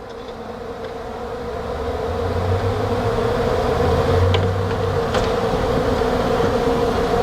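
Honey bees from an opened hive buzzing in a steady hum that grows steadily louder.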